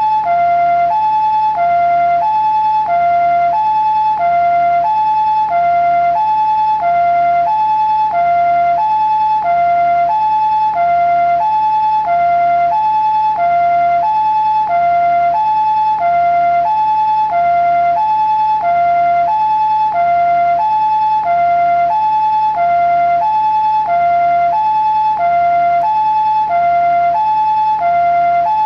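Japanese ambulance two-tone siren sounding its "pee-po" call: a higher and a lower tone alternate steadily, about one full high-low cycle every 1.3 seconds.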